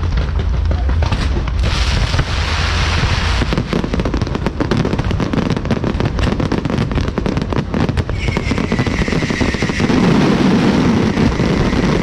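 Fireworks going off in a dense, continuous crackle of rapid bangs. A whistling tone, falling slightly in pitch, joins in about two-thirds of the way through.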